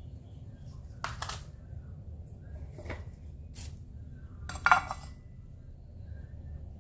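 Kitchen utensils and cookware clinking and clattering in four short knocks, the loudest near the end, over a steady low hum.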